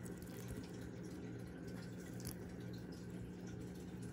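Quiet room tone: a steady low hum with a few faint ticks.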